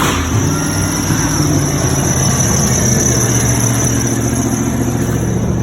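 1995 Ford F-150's 302 V8 engine running steadily with a bad alternator, so it is running down its battery and at risk of stalling.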